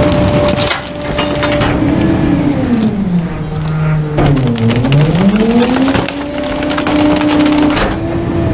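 Rear-loader garbage truck's packer crushing an upholstered recliner, with repeated cracking and splintering of its wooden frame. Under it the truck's engine runs, its pitch sagging under the load about three to four seconds in and then climbing back.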